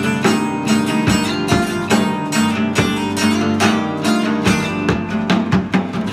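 Acoustic guitar music, strummed and plucked in a steady rhythm.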